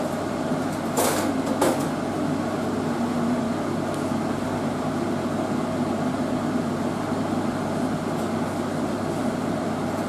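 Steady machine-like hum and hiss, with two short knocks about a second in.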